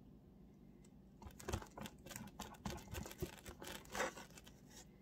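A string of light, irregular clicks, taps and scratches starting about a second in: long fingernails and fingers handling a small plastic jar of dip powder and a nail-polish brush bottle.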